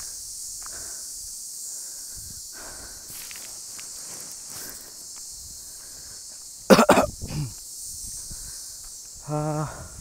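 Faint footsteps over a steady high hiss, with one loud cough about seven seconds in and a short hummed voice sound near the end.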